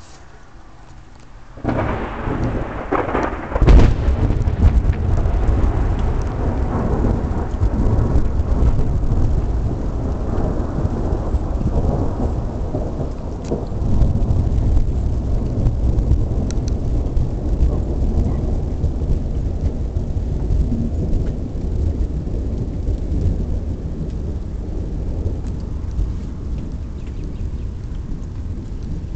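Close thunder: a sudden crack about two seconds in and a sharper, louder crack near four seconds, then a long low rumble that slowly fades away.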